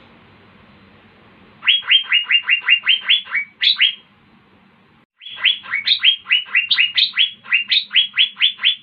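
Asian fairy-bluebird (cucak biru) singing in rapid runs of short notes that slide sharply downward, about six a second. There are two runs, with a pause of about a second between them, over a faint low hum.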